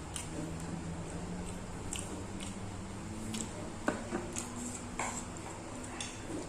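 A person eating close to the microphone: chewing with soft wet smacks and scattered short clicks, the sharpest about four and five seconds in.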